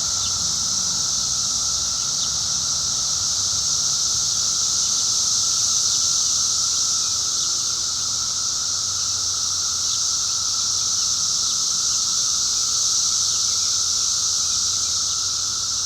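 Dense chorus of 17-year periodical cicadas: a loud, steady drone that holds without a break, a high hiss over a lower hum.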